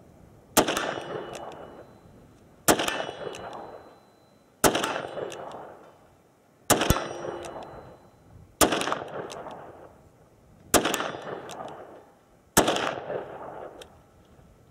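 A Smith & Wesson 686 Plus .357 Magnum revolver firing seven single shots, one about every two seconds, emptying its seven-round cylinder. Each shot has a long trailing echo.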